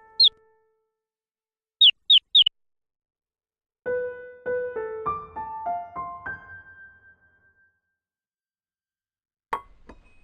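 Three quick high chirps, then a short phrase of about a dozen separate notes on an electric piano, and a single sharp hit near the end.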